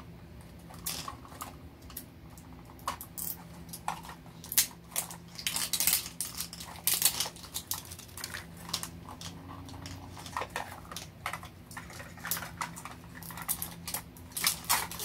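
Foil wrapping crinkling and small plastic capsule parts clicking as Mini Brands capsules are unwrapped and opened by hand, in irregular bursts of crackles and clicks.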